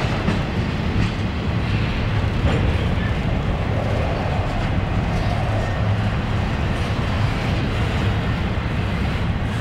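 Double-stack intermodal freight train passing close by: a steady rumble of steel wheels rolling on the rails, with a few faint clicks.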